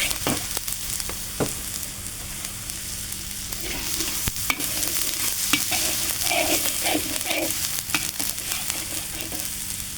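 Garlic and tomato frying in hot oil in a pan with a steady sizzle, while a utensil stirs and scrapes the pan, clicking against it now and then.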